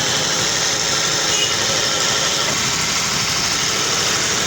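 Honda CD 70's small single-cylinder four-stroke engine running steadily at idle, carrying the engine noise that the mechanic puts down to a worn clutch bearing.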